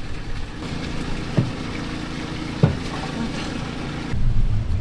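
Stick-welding arc crackling and sizzling as a rebar is welded, over a steady engine drone, with two short knocks along the way. Music comes in near the end.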